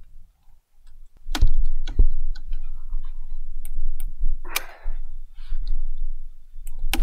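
Pocket wire saw being drawn back and forth through a conifer branch: scattered sharp clicks and knocks from the wire and wood, with a short rasping stroke midway and several loud sharp clicks close together near the end.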